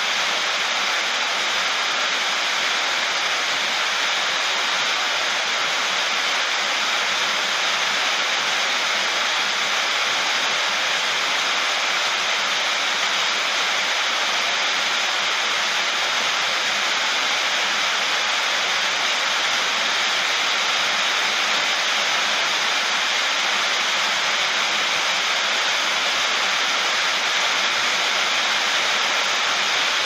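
Heavy rain falling on a sheet-metal roof, a steady, even rush.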